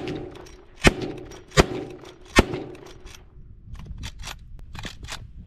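Lever-action rifle fired three times in quick succession, the shots about three-quarters of a second apart, each with a short ringing tail. After that comes a run of much quieter sharp clicks as the lever is worked and the empty case is ejected.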